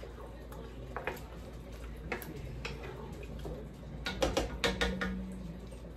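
A spoon stirring a thick cranberry jello mixture in a stainless steel pot: scattered clicks and scrapes of the spoon against the pot, busiest about four to five seconds in.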